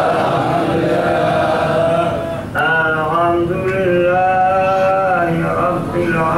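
A man's voice chanting slowly and melodically, holding long notes, with a brief break for breath about two and a half seconds in.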